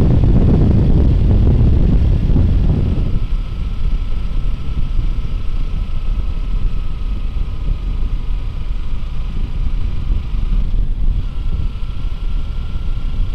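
Sport motorcycle being ridden on the road: heavy wind rush on the microphone for the first few seconds, then the engine running steadily with a thin whine over a low drone. The whine breaks off briefly near the end and returns slightly higher.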